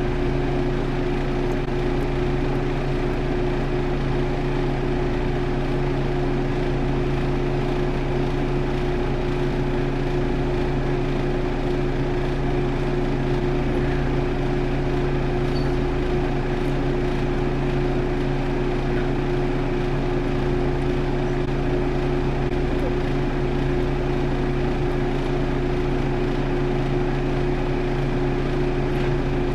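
A steady machine drone: a low, even hum with a noisy whir over it, unchanging throughout.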